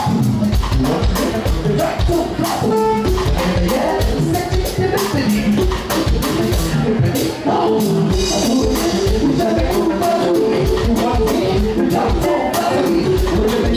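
Live band playing upbeat dance music with a steady beat and singing.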